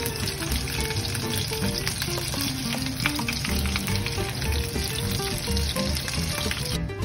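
Block of pork humba sizzling in a hot frying pan as its congealed fat melts, with a wooden spoon working at it against the pan. The sizzle is steady and cuts off abruptly just before the end.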